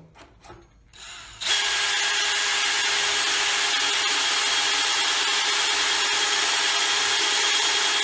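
Cordless DeWalt 20-volt drill/driver running at a steady speed with a steady whine, its brad-point bit boring a dowel hole into a wooden board through a doweling jig's guide bushing. It starts about a second and a half in, after a few faint clicks.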